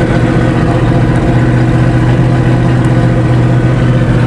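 Truck engine running at a steady speed with an even drone, just after the clutch is popped to bump-start a long-idle Ford F-250 diesel.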